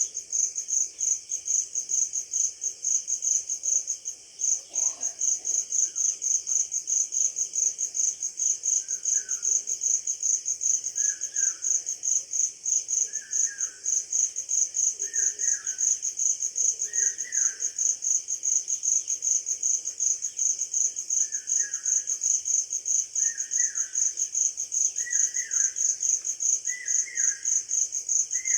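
Crickets chirping in a rapid, even, high-pitched pulse that never lets up. From about a third of the way in, a bird repeats a short falling call about every second and a half, pausing briefly midway.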